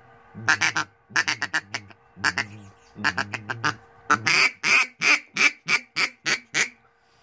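Hobo duck call blown by mouth to imitate duck quacks: a few short clusters of quick quacks, then a run of about nine evenly spaced quacks at roughly three a second.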